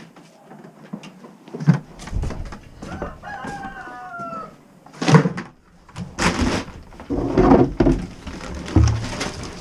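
A rooster crows once, about three seconds in, a call of nearly two seconds that falls slightly in pitch. Loud knocks and scraping follow from about five seconds on.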